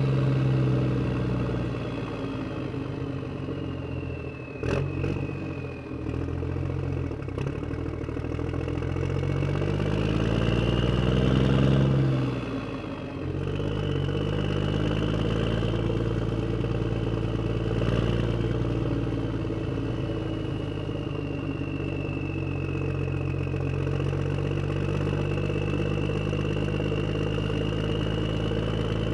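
A motor vehicle engine running steadily, with a few sharp knocks about five seconds in. The revs rise from about nine seconds in, drop off suddenly a few seconds later, then settle back to a steady run.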